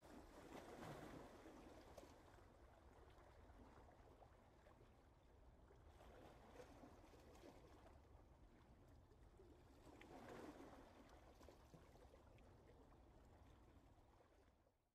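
Near silence: a faint, even hiss of background noise that swells a few times, then cuts off to dead silence just before the end.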